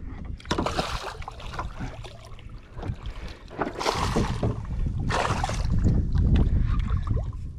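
A hooked redfish splashing at the water's surface, in several separate bursts, as it is brought alongside to be landed by hand. A steady low rumble of wind on the microphone runs under the splashes.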